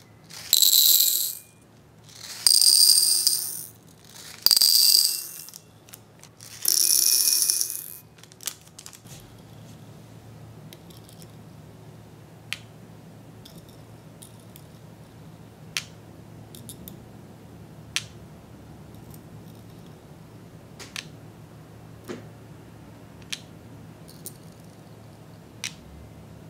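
Small candy beads poured from a packet into glass bowls four times, each pour a rattling cascade of a second or so. After that, single light clicks every second or two as beads are set one by one into a plastic tray.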